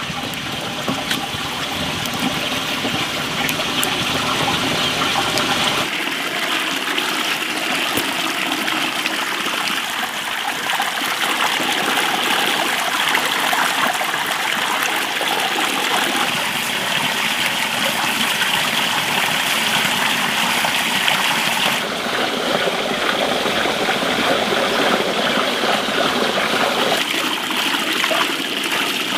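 Tap water running steadily and splashing into a basin as hands and vegetables are washed under it.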